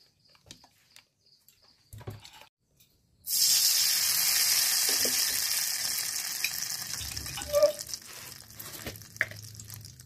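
Egg frying in hot oil in an iron kadai: a loud sizzle starts suddenly about a third of the way in, then slowly fades. Before it there are only a few faint clicks.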